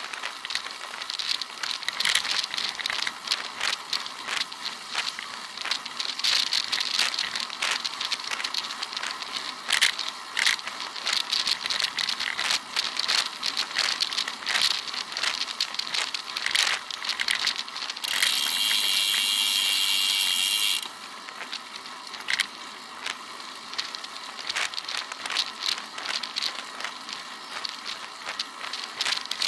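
Dense crackling and rattling with wind hiss from a rear-facing camera mounted on a moving road bike, shaken by road vibration. About two thirds of the way through, a steady high-pitched tone lasts about three seconds, then cuts off suddenly.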